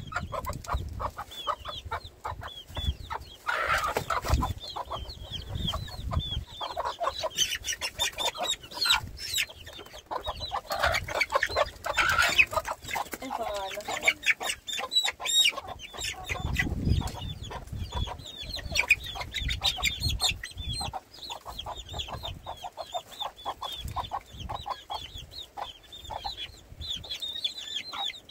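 Chickens clucking and calling, with many short high calls repeating throughout and scattered knocks.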